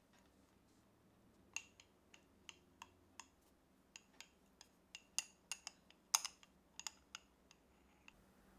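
Metal teaspoon clinking against a small glass cup while smoothing cheesecake filling: a quick, irregular run of light, ringing taps, a few a second, the loudest around six seconds in.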